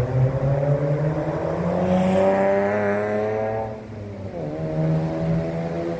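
A motor vehicle's engine accelerating, its pitch rising steadily, then dropping at a gear change about four seconds in before climbing again.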